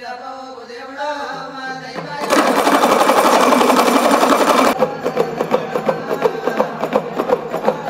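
A man's voice at the start, then a loud, fast rattle for about two seconds that stops abruptly, followed by background music with a quick steady beat.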